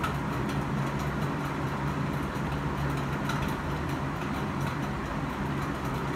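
Steady low background hum with an even noise floor and no speech, with faint clicks near the start and about three seconds in.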